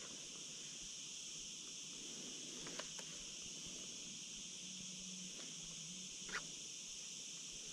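Quiet outdoor ambience: a faint, steady high-pitched hiss with a few faint ticks, two close together just before the halfway point and one more about six seconds in.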